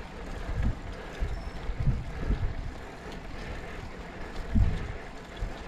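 Wind buffeting the microphone on a moving road bike, in irregular low gusts, the strongest about four and a half seconds in.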